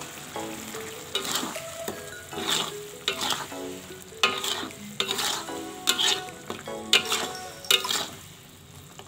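A ladle stirring and scraping through thick chili spice paste in a wok, with repeated sharp scrapes about every half second to second from about a second in until near the end, over the sizzle of the paste frying.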